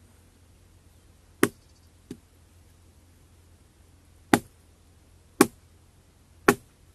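Axe chopping into a felled tree trunk: four sharp strikes, the first about a second and a half in and the last three about a second apart, with one lighter knock soon after the first.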